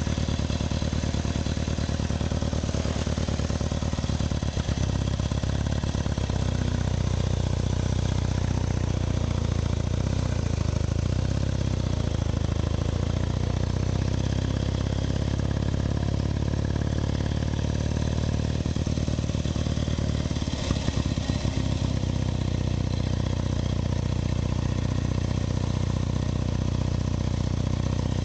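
Engine of a 1920 Douglas W20 motorcycle, a small side-valve flat-twin, running steadily under way as the bike is ridden, with one brief knock about two-thirds of the way through.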